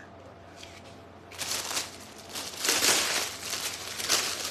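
Clear plastic bag crinkling as a canvas tote bag is handled and pulled out of it, starting about a second in, in uneven rustles with a few louder ones.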